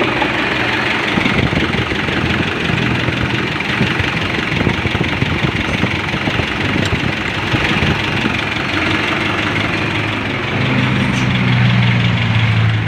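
Mitsubishi Adventure's engine idling steadily, run to check the freshly overhauled power-steering rack and pinion for leaks. A low hum grows louder about ten and a half seconds in.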